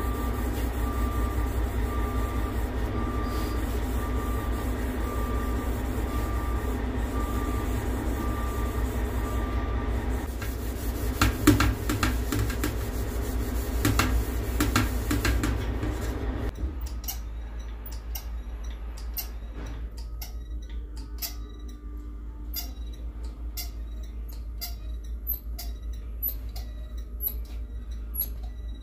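Abrasive scuff pad rubbing over sheet-metal truck hood panels against a steady shop hum, with a faint beep repeating in the background for the first ten seconds. About two-thirds of the way through, the hum cuts off suddenly and scattered light clicks and taps follow.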